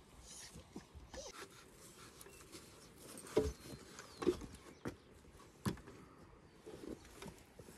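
A handful of sharp, separate knocks of timber being handled: a wooden brace board set and shifted against a wooden greenhouse post. They come in the middle, about four knocks over two seconds, over low outdoor ambience.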